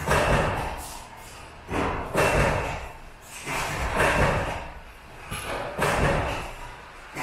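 Repeated heavy thuds, one about every two seconds, each trailing off in a short noisy rush: workshop machinery cycling where sheet-metal tissue-box covers are made.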